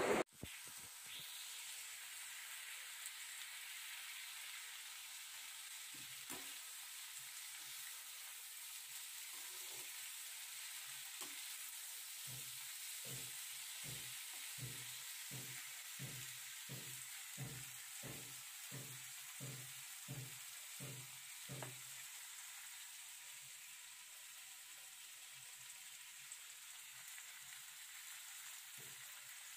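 Sliced vegetables frying in oil in an iron kadai, a faint steady sizzle. For much of the middle a steel slotted spatula stirs them in regular strokes, about two a second, then stops.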